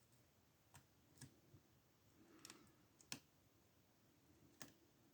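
Faint scattered clicks and light scraping of a pick and a key used as a tension wrench working the levers inside an ABUS lever padlock, with the sharpest click about three seconds in.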